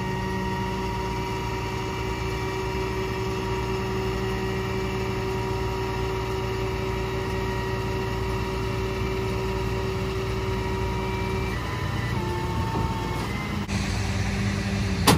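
A motor vehicle engine idling steadily, its hum wavering briefly in pitch near the end, with one sharp click just before the end.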